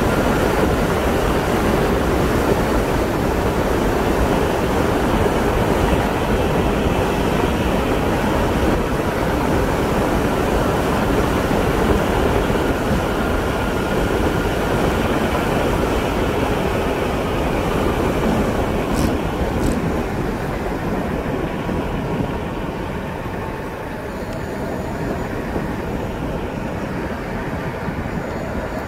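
Steady wind rush and tyre noise of a vehicle travelling along an asphalt road, easing off a little about two-thirds of the way through.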